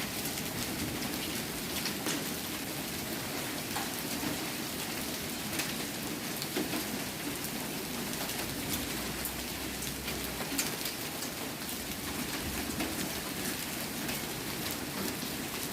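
Heavy rain falling steadily in a thunderstorm, with many small sharp ticks of drops striking hard surfaces.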